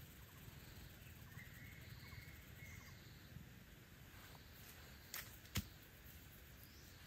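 Quiet forest ambience broken by two sharp knocks about half a second apart, some five seconds in, the second the louder: a machete being picked up and knocked against the ground.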